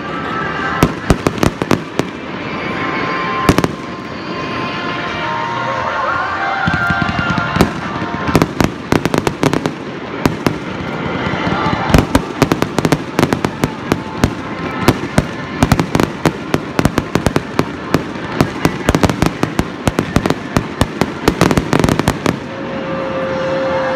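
Fireworks display: aerial shells bursting with sharp bangs and rapid crackling, in dense volleys over a steady background din. A held whistle-like tone comes in near the end.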